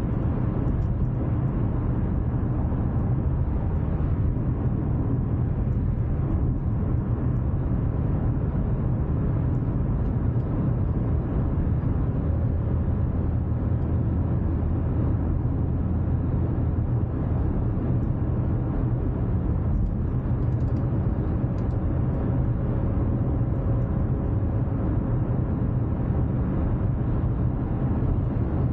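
Steady in-cabin noise of a Ford Focus cruising on a motorway: a constant low tyre and road rumble mixed with engine drone, heard from inside the car.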